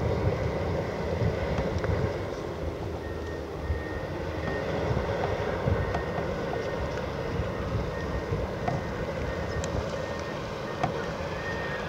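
Heavy diesel earthmoving machinery running steadily, a deep rumble with scattered sharp clicks and knocks.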